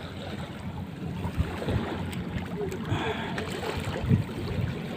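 Water sloshing and lapping, with wind noise on the microphone and a few soft low knocks.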